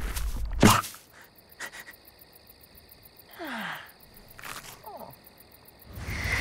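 Cartoon night ambience of crickets chirping steadily through a quiet stretch, with two short falling-pitch sound effects in the middle. A sharp hit comes just under a second in, and louder sound effects return near the end.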